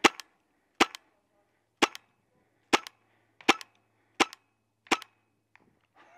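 Magfed paintball marker firing seven single shots, each a sharp pop, about one every three-quarters of a second to a second.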